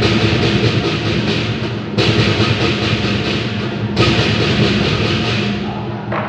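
Lion dance percussion: a large Chinese drum beaten steadily under clashing hand cymbals, with a fresh loud cymbal crash about every two seconds.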